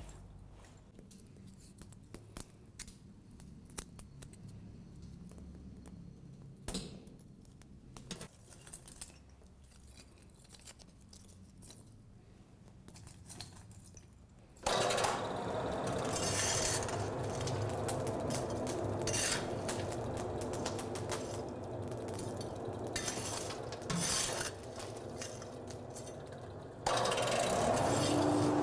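A coal forge being lit. First the kindling in the firepot gives scattered small clicks and crackles. About halfway through a loud steady rushing fire noise sets in, with coal scraping and clinking as it is raked, and near the end it gets louder still and a steady hum joins it.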